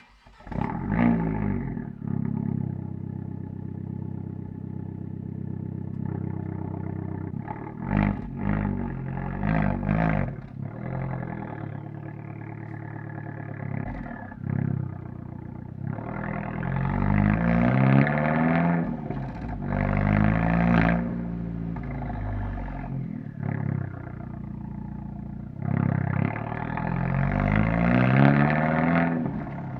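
Abarth 124 Spider's turbocharged 1.4-litre four-cylinder, through its Monza exhaust, starting with a flare of revs and settling to idle. A few quick throttle blips follow, then longer revs that rise and fall twice.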